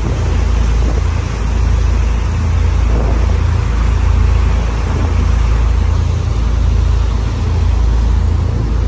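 Boat under way: a steady, loud low rumble with an even rushing noise over it.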